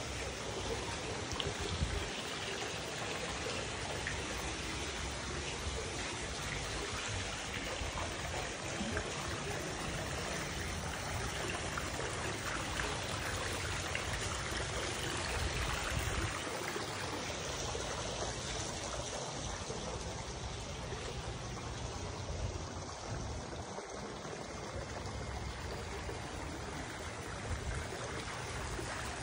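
Water from a stacked-stone waterfall feature spilling steadily into a swimming pool.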